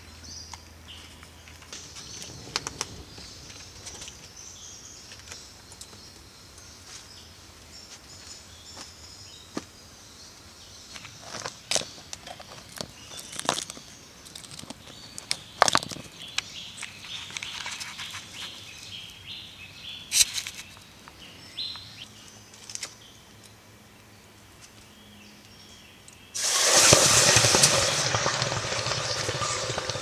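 Birds calling in the background, with scattered sharp knocks and crackles as glowing charcoal embers are raked by hand. Near the end a loud, steady rushing noise starts suddenly.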